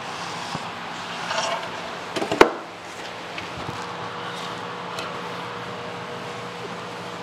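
A single sharp knock about two and a half seconds in, with a short scraping rustle just before it and a couple of faint clicks after, over a steady low shop hum.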